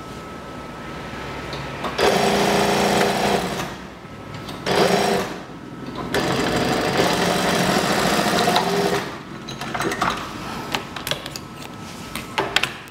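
Electric sewing machine stitching a seam in three spells of a few seconds each, starting about two seconds in and pausing briefly between them. A few short clicks near the end.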